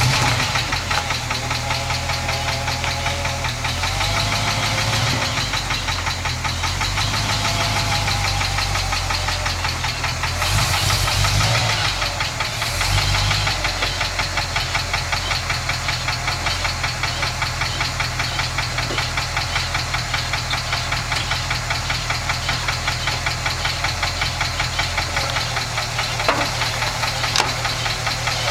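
International Harvester 1200B pickup engine running with a loud, rapid, steady ticking that does not go away as the engine warms up. The owner wonders whether it is lifter tick or something more serious.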